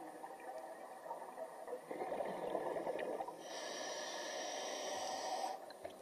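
Scuba regulator breathing underwater: a bubbling rush of exhaled air about two seconds in, then a steady hiss of air through the demand valve for about two seconds that cuts off sharply.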